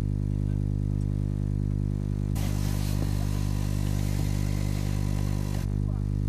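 Microwave oven running with a steady low electrical hum. From about two seconds in, a hiss with a few faint clicks joins it for about three seconds, then stops.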